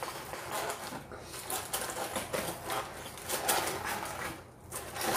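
Paper liner and plastic wrapping in a fried-chicken box crinkling and rustling as they are handled: a quick, dense run of crackles.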